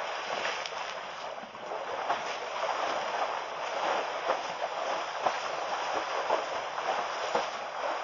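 Elephants splashing in mud and muddy water: a steady watery hiss broken by many short splashes and slaps.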